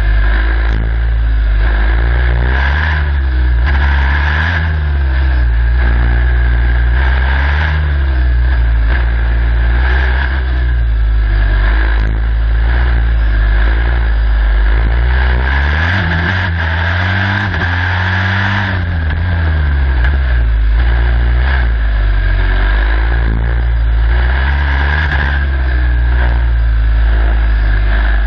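Turbocharged Formula Student race car engine, heard onboard, revving up and down every few seconds as the car accelerates and slows through a cone slalom in second and third gear. A steady high whine runs over the engine note.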